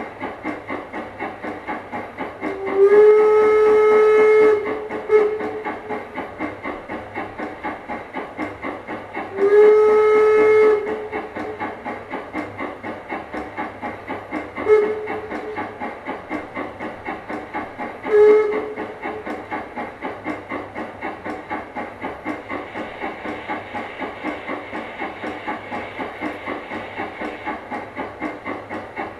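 Zimo MX699 sound decoder in an LGB model of an HF110C steam locomotive, playing recordings of the real engine: steady steam exhaust chuffs, about three a second, kept in time with the wheels. Two long whistle blasts sound about 3 and 10 seconds in, and two short toots follow around 15 and 18 seconds.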